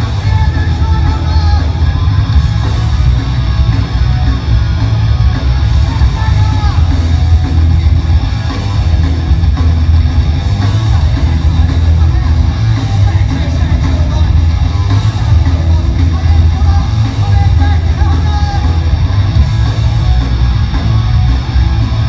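Live Oi! punk band playing a song at full volume, heard from the crowd. The bass end is heavy and booming.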